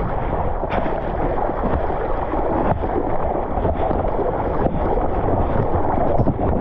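Steady wind rumble on the microphone mixed with the wash of ocean surf, with a few brief gusty buffets.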